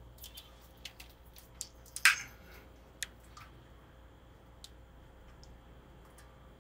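Scattered small clicks and taps of fingers working the metal Tune-o-matic bridge of a Les Paul-style electric guitar, adjusting it to raise the string height with the strings slackened. There is a sharper click about two seconds in and another a second later.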